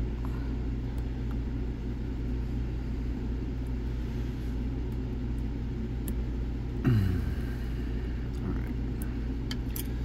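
A steady low hum runs throughout. Over it come a few faint ticks from lock picks working the finger pins of a Zeiss Ikon TK5 lock under light tension, and a short falling sound about seven seconds in.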